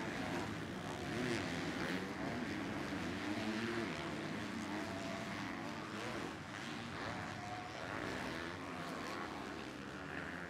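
MX2 motocross bikes (250cc four-stroke) racing, their engines revving up and down over and over as riders work the throttle.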